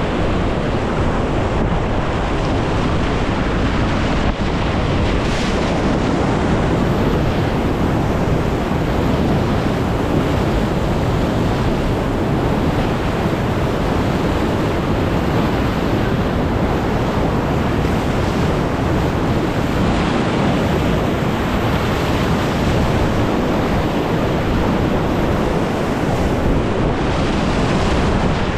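Loud, steady rush of whitewater rapids heard from a kayak, with wind buffeting the camera microphone.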